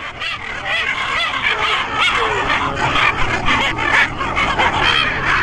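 A dense chorus of many short, overlapping animal cries, rising and falling in pitch without pause.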